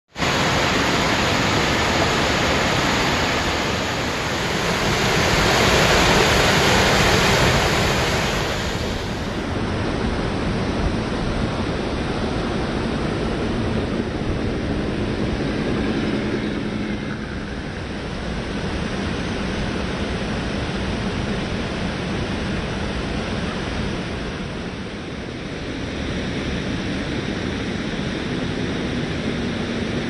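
Rushing stream water, a steady loud rush that swells for a few seconds near the start, with a faint low hum coming and going under it.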